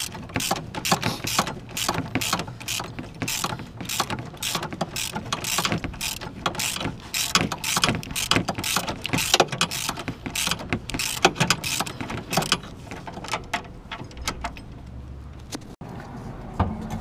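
Hand socket ratchet clicking in quick runs of back-strokes as it turns a fastener, dying away about thirteen seconds in.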